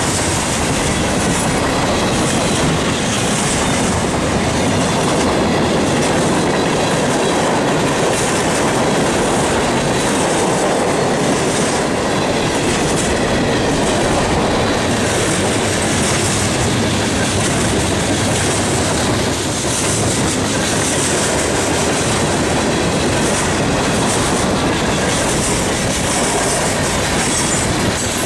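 Freight cars of a passing train rolling by close at hand: a steady, loud rumble and rattle of steel wheels on the rails, with a high hiss from the wheels that swells and fades every few seconds.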